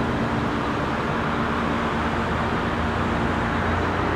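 Steady hum of distant road traffic, even and unbroken.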